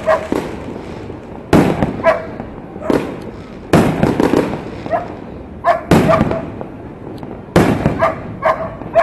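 Fireworks and firecrackers going off: a string of loud, sudden bangs about a second or two apart, some louder than others, each fading out in an echo.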